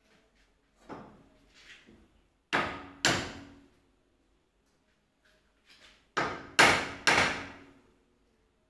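Hard knocks on a window frame while a window is forced open: a couple of lighter knocks, then two heavy bangs about half a second apart, and three more a few seconds later, each ringing out briefly.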